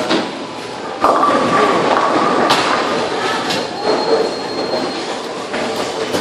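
Bowling alley din: bowling balls rumbling down the lanes, and pins crashing on other lanes. A loud clatter comes about a second in, with further sharp crashes a few seconds later.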